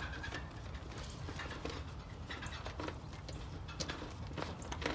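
Small irregular clicks and taps of a screwdriver and wire connectors as leads are pushed onto the terminals of a heat pump's new defrost control board, over a low steady background rumble.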